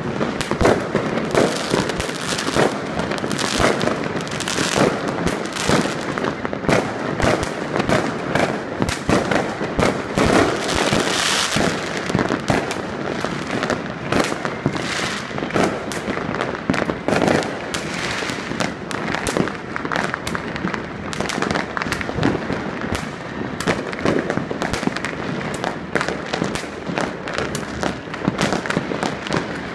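Many fireworks and firecrackers going off at once across a city: a continuous, overlapping barrage of bangs and crackling with no pause.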